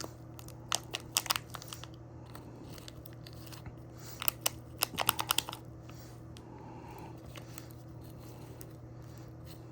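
Paper wrapper of an old Bazooka gum pack crinkling and tearing as pieces of gum are pulled out of it. The crackles come in two spells, about a second in and again around four to five seconds in, over a faint steady hum.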